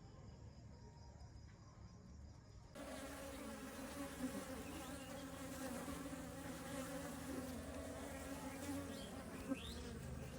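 Many bees buzzing together in a steady, dense hum that starts abruptly about three seconds in, after a quiet opening.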